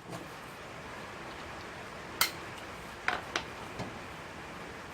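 A few sharp metallic clinks of hand tools on metal: one about two seconds in, then three more in quick succession about a second later.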